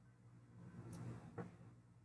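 Near silence: a faint steady low hum, with a soft rustle and a small click about a second and a half in.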